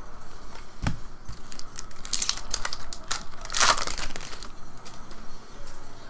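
A foil trading-card pack wrapper being torn open and crinkled, with crackling that is loudest about three and a half seconds in and then dies away. There is a single knock about a second in.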